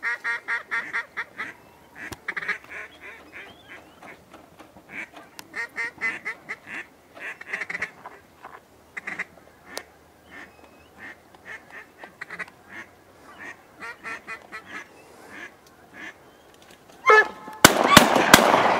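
Repeated runs of loud mallard-style quacks, several quick notes at a time. About seventeen seconds in, a volley of shotgun shots comes, about four in a second and a half, followed by rolling echo.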